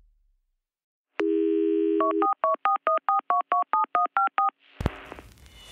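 Telephone dial tone for about a second, then about a dozen quick touch-tone dialing beeps. A sharp click and a swelling whoosh follow near the end.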